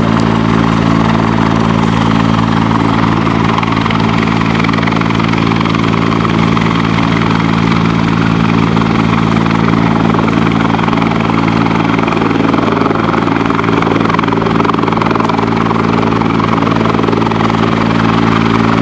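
Rescue helicopter hovering low overhead, its rotor and turbine making a loud, steady drone that does not change.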